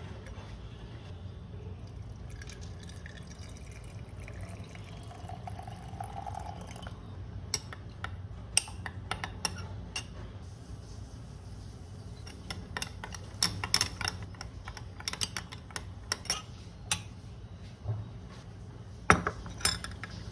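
Tap water running into a glass jar of lemon slices, with a short rising tone as it fills, then a metal spoon clinking many times against the glass as the lemon water is stirred.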